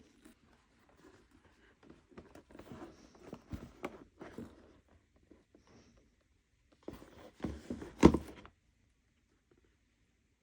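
Hands unwrapping a parcel: scattered faint rustles and small knocks of packing material, then a louder burst of rustling with a sharp click about eight seconds in.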